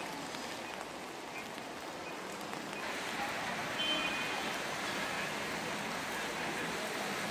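Steady rain falling on a wet cobbled street, the hiss growing a little louder about three seconds in.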